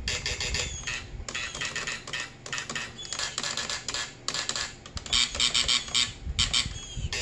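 Quick clicking of the recall button on a Western Electric 2830 key telephone, pulsing out digits on a 1A2 intercom line, mixed with short bursts of the intercom buzzer that the button turns on and off. The buzzing is strongest and most frequent near the end.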